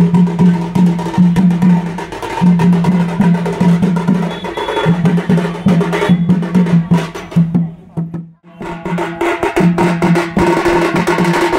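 A street drum band of double-headed barrel drums beaten fast with sticks, in a steady, driving rhythm, with a steady droning tone running alongside. The sound drops out briefly about eight seconds in, then resumes.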